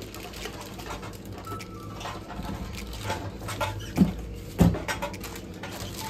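Small clicks, taps and rustles of objects being handled, with two louder knocks about four and four and a half seconds in.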